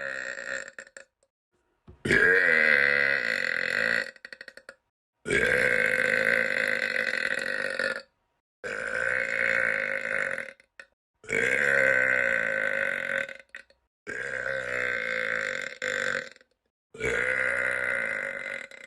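A boy letting out a series of long, drawn-out belches. One tails off about a second in, then six more follow one after another, each two to three seconds long with short silent gaps between.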